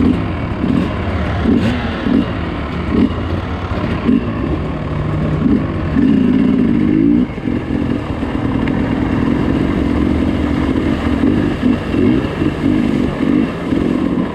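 Dirt bike engine revving on and off in short throttle blips while riding rough terrain, with one longer hard pull about six seconds in.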